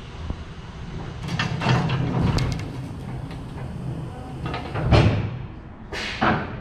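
Several sharp knocks and clatters, then a heavy thump about five seconds in and a last knock shortly after.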